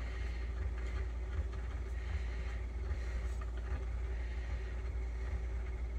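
Victrola talking machine's crank-up spring motor running the record base, a steady low whir with a faint steady hum, while its speed-control screw is being adjusted toward proper record speed.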